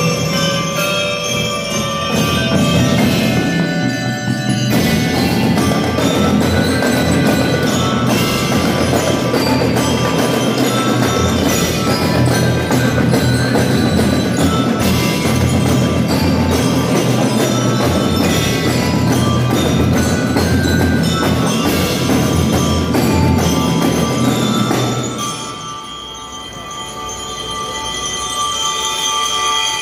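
A drum and lyre band playing: metal bell lyres ring out a melody over a steady beat of marching snare and bass drums. About 25 seconds in, the drums stop and the lyres ring on more softly, swelling again near the end.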